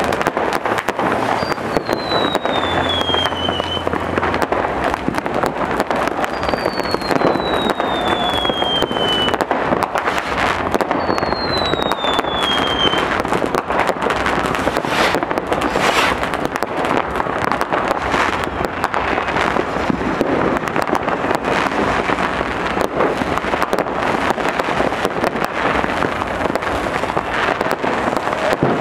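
Fireworks and firecrackers going off all around in a constant crackle of bangs. Three falling whistles sound in the first half, each about two seconds long.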